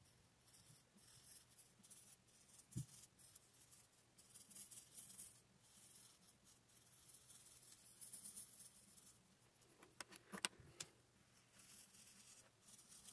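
Faint scratching of a felt-tip sublimation marker colouring on copy paper through a stencil, coming in short stretches. There are a few light clicks about ten seconds in.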